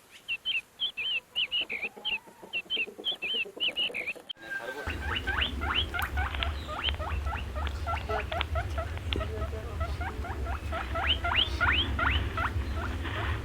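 Quick, evenly repeated high chirps of a bird, about three a second; then, after an abrupt cut about four seconds in, a crowd of small animals giving rapid high squeaks over a steady low hum.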